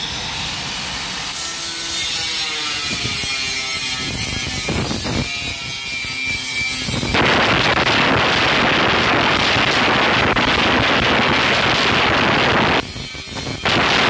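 Angle grinder with a thin cutting disc running free with a motor whine, then from about seven seconds in cutting into perforated steel cable tray with a loud, steady grinding hiss. Near the end the disc lifts off for a moment, then bites into the metal again.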